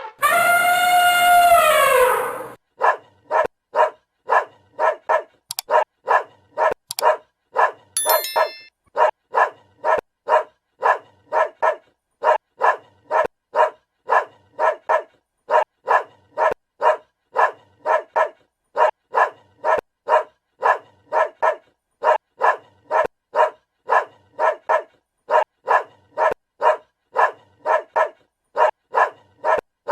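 A dog barking over and over in a steady, even rhythm, a little under two barks a second. It is preceded, in the first two seconds or so, by a single long animal call that rises and then falls in pitch.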